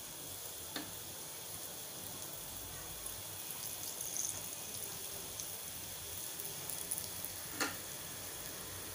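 Slices of flour-coated elephant foot yam shallow-frying in oil on a flat nonstick griddle, with a soft, steady sizzle. Two faint ticks sound, about a second in and near the end.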